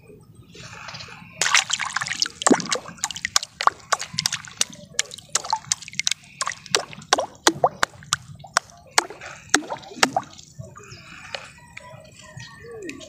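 Rapid, irregular splashing and dripping of water in the shallows at the bank. It starts in a burst about a second and a half in and thins out toward the end.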